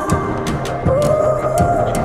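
Background music: a gliding synth melody over a steady bass line, with percussion ticks about twice a second.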